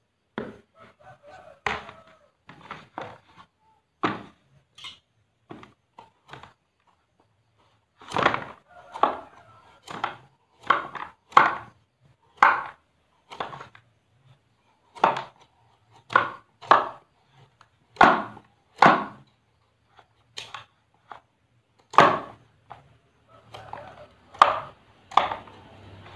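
Kitchen knife paring the hard rind off a pumpkin against a wooden cutting board: a run of short, sharp cuts and scrapes, sparse at first, then after a short pause about one or two a second.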